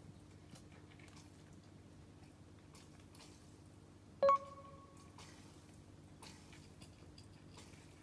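Tabby cat eating from a bowl: faint, irregular crunching clicks over a steady low hum. About four seconds in, one sharp clink rings out off the bowl and fades within a second.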